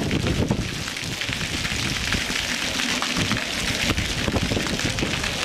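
Wind buffeting the camcorder microphone: a steady crackly hiss with irregular low rumbling.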